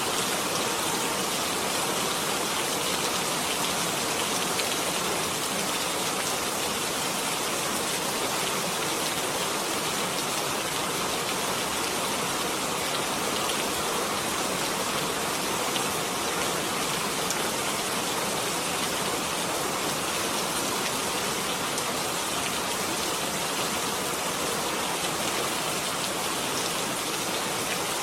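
Steady rain falling, an even hiss with faint scattered drop ticks throughout.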